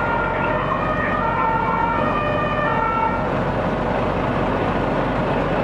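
An emergency-vehicle siren sounding in steady tones that step in pitch for about three seconds, then stopping, over a steady low rumble of idling fire engines.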